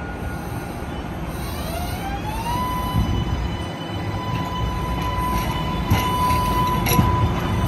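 MBTA Green Line Type 8 light-rail car accelerating along street track: its traction motors whine, rising in pitch over about a second and then holding a steady tone, over the low rumble of the wheels on the rails. A few sharp clicks come near the end.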